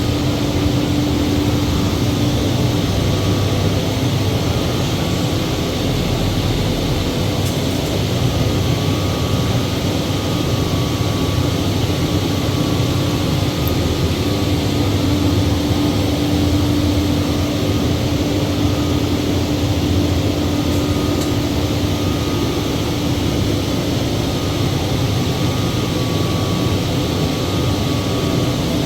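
A steady engine-like drone with a constant low hum, unchanging throughout.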